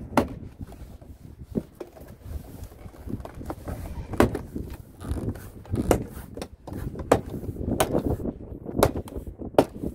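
Plastic retaining clips of a BMW F30 door card popping out of the door as the card is pulled off: a series of sharp snaps, roughly one a second and coming faster towards the end, over a low rumble.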